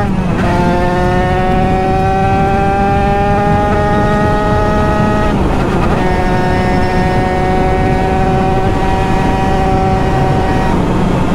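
Two-stroke Derbi DRD engine with a 100 cc Fast kit, pulling through the gears: its pitch climbs slowly, then drops with an upshift just after the start and again about five seconds in. The engine note fades out near the end.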